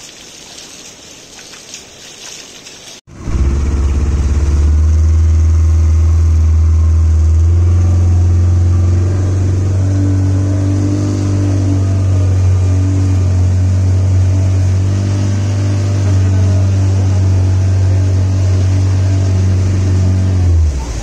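A short stretch of river water splashing, then, about three seconds in, a motorboat engine running loudly and steadily, its note stepping up a few seconds later as it picks up speed.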